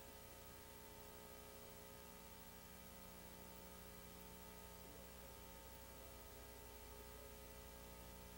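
Near silence: a faint steady electrical hum.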